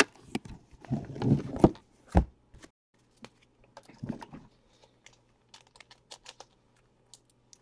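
Cellophane shrink-wrap crinkling, with handling knocks, as a sealed trading-card box is handled and set down. The rustle is busiest in the first two seconds and thins out to a few faint ticks.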